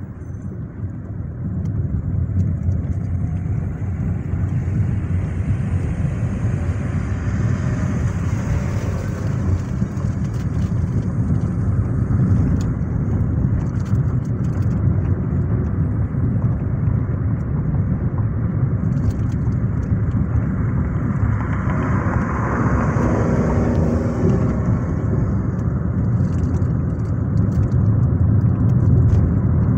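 Road and engine noise of a car driving in city traffic, heard from inside the cabin: a steady low rumble with tyre hiss that grows louder as the car pulls away early on, with a brief louder swell about two-thirds of the way through.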